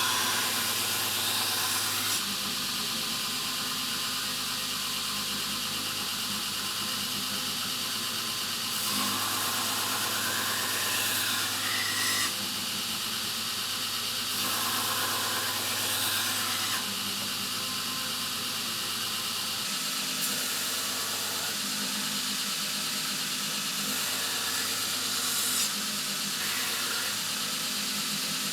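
Belt grinder running steadily while steel knife blades are ground against the belt in several passes, each pass adding a brighter hiss and squeal over the motor.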